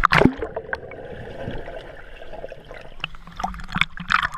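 Water splashing and trickling, with a loud sudden splash right at the start and a few more sharp splashes or knocks near the end.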